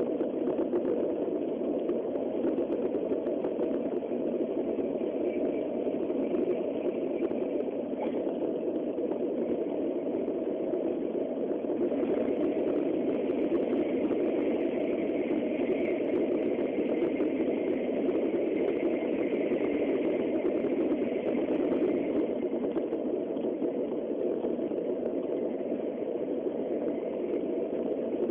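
Steady running noise of a Tokaido Shinkansen Nozomi bullet train at speed, heard from inside the passenger cabin: a continuous rumble and rush. A brighter hiss joins in from about twelve seconds in and eases off a few seconds before the end.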